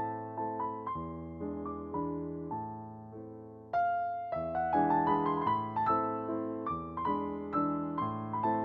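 Background piano music: notes struck one after another over a low sustained bass, fading away before a new, louder phrase comes in about four seconds in.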